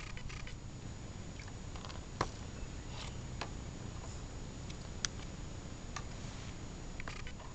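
About six scattered short, sharp clicks, the loudest about two seconds in and another about five seconds in, over a steady low hum and a faint high whine.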